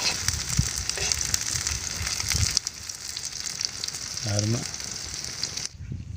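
Masala-coated egg kulfi pieces sizzling and crackling in oil on a hot iron tawa, with a few knocks of a metal spatula against the pan. The sizzling cuts off suddenly near the end.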